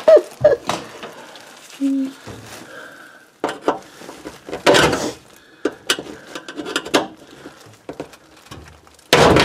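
A thin metal tool knocking and scraping against the old sink drain's corroded basket strainer from below, prying off what is left of it: a string of irregular metallic clanks and scrapes, with the loudest clanks about halfway through and near the end.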